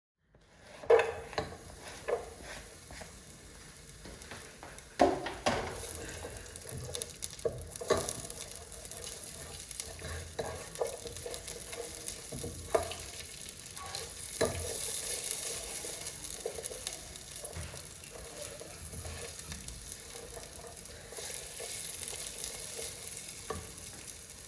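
Food frying and sizzling in a pan while it is stirred, with a utensil knocking against the pan now and then.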